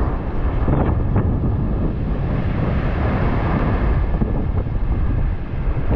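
Wind buffeting the microphone on an open beach: a steady rushing rumble with no break.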